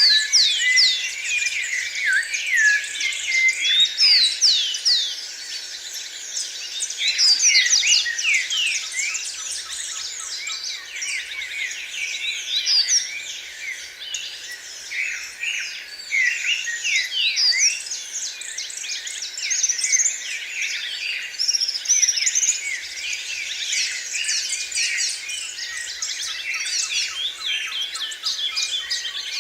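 Several small birds singing and chirping at once: a dense, overlapping chorus of quick high chirps and short sweeping whistles.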